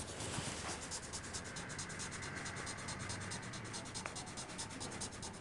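A pen writing on paper, its tip scratching quietly across the sheet as letters are traced.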